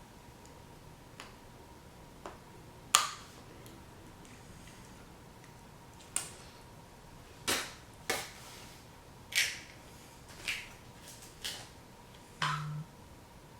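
Scattered light clicks and taps of fishing hooks and tackle being handled and dropped into a plastic tackle box, about ten in all, the sharpest about three seconds in.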